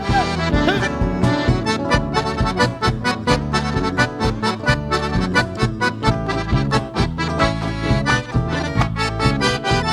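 Live band playing an instrumental song introduction led by accordion, over a steady rhythmic beat.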